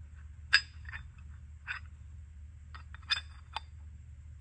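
Light metallic clinks and taps from turbocharger parts being handled, about five in all, the loudest about half a second in, some with a short ring. A low steady hum runs underneath.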